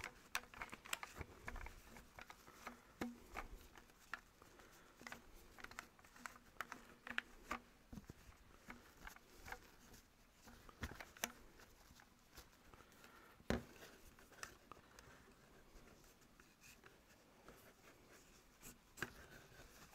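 Faint handling sounds of a damp cloth rubbing along a Dyson V10 vacuum wand and its contacts, with scattered light clicks and scrapes and one louder knock about two-thirds of the way through.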